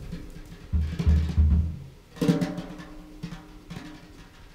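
Drum kit played sparsely and freely: a quick cluster of deep drum thumps about a second in, then a louder ringing drum stroke a little past two seconds, followed by light scattered hits.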